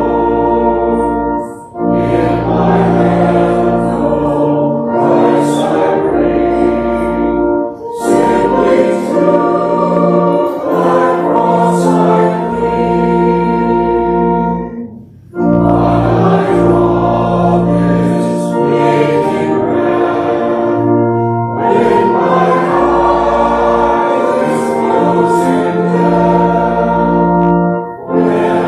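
A congregation singing a hymn with organ accompaniment, line by line, with a short break between lines about every six to seven seconds.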